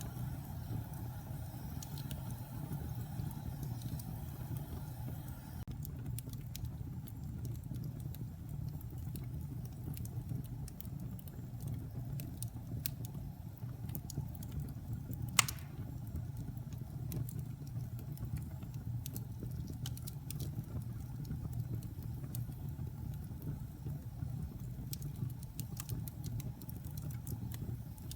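Wood logs burning in a fireplace: a steady low rumble of the fire with scattered small crackles and one sharp, loud pop about halfway through.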